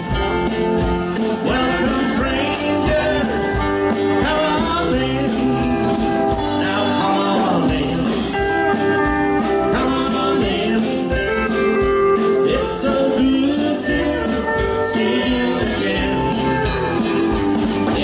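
Live country band playing: drum kit, electric and acoustic guitars, with a tambourine shaken along.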